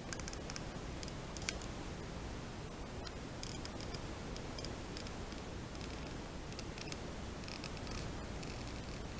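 Plastic syringe being slowly emptied into a plastic bottle cap: scattered faint clicks and short hissy crackles from the plunger and the liquid squirting into the cap, over steady background hiss.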